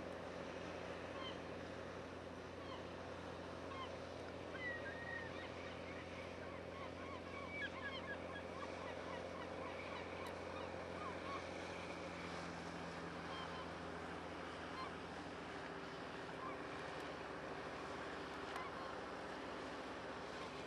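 Gulls calling repeatedly in short cries, mostly in the first half, over the steady hum of a boat's diesel engine running.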